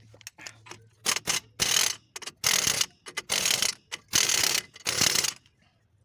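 Impact wrench hammering on the loose wheel-bearing (spindle) nut of a 1996 Ford Ranger front hub, fired in six short bursts starting about a second in. A few light clicks come before the first burst.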